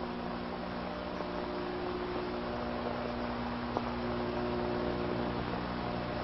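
Steady electrical hum over hiss from an old film soundtrack, with a single faint click a little before four seconds in.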